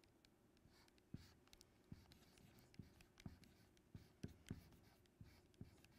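Faint strokes and taps of a marker writing on a board, about a dozen short marks spaced roughly half a second apart.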